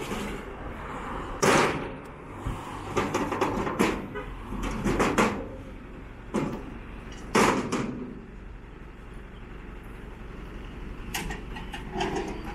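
Two steel loading ramps of a flatbed tow truck being slid out from under the bed: a series of metal scrapes and clanks, loudest about a second and a half in and again around seven seconds, with lighter clicks near the end.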